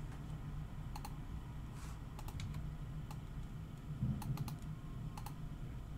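Computer keyboard keys clicking in short, scattered runs over a steady low hum.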